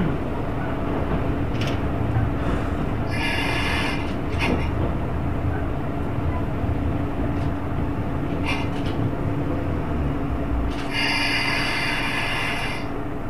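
Diesel railcar idling while stopped at a station: a steady engine hum with a held low tone, its deep rumble easing off about eleven seconds in. Two stretches of high hiss break in, a short one about three seconds in and a longer one near the end.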